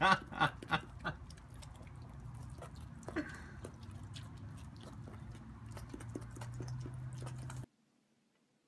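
A goat chewing spaghetti, with soft wet smacks and clicks over a steady low hum. A person's voice sounds loudly a few times in the first second, and the sound cuts off abruptly near the end.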